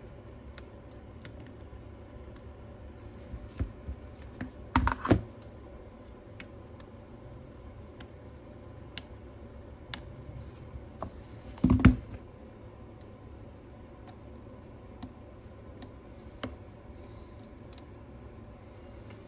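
Small hand tools and loose parts clicking and tapping against an iPad's metal housing during disassembly, with two louder clusters of knocks about 5 and 12 seconds in, over a faint steady hum.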